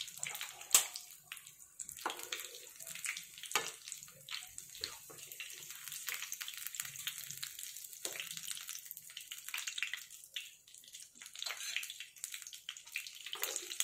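Hot oil sizzling and crackling around pizza pockets deep-frying in a pan, with scattered pops. A metal slotted spatula clicks against the pan a few times, the sharpest click about a second in.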